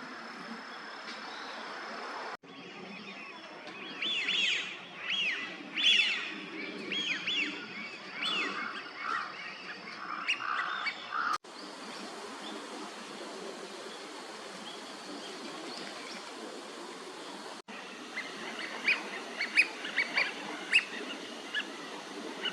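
Eurasian wigeon drakes whistling: a run of loud, clear whistled calls that slide up and down in pitch, over a steady background hiss. Partway through there is a stretch of hiss alone, and near the end come a few shorter, sharper calls.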